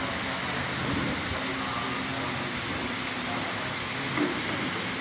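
Steady electric fan noise: an even rush with a faint low hum, and a brief knock about four seconds in.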